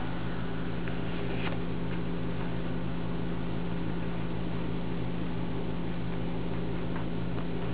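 Steady low electrical hum with hiss, and a few faint crisp clicks from a Holland lop rabbit chewing a carrot.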